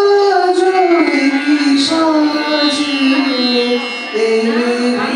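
Opening song being sung: a single voice holds long notes that slide slowly from one pitch to the next.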